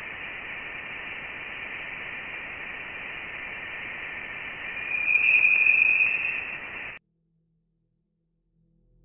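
Sonified Voyager 1 Plasma Wave Science recording: a steady radio-like hiss with thin whistling tones, swelling about five seconds in to a louder, higher tone. The tone is the plasma around the probe in interstellar space, its pitch set by the plasma's density. It cuts off suddenly about seven seconds in.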